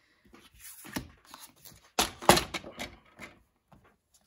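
A plastic paper trimmer being handled and set down on a craft mat: a knock about a second in and a louder clatter about two seconds in, with card stock rustling and sliding around them.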